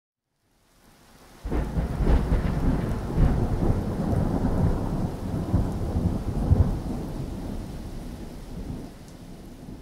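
Thunder rumbling over steady rain. It rises sharply about a second and a half in and dies away near the end.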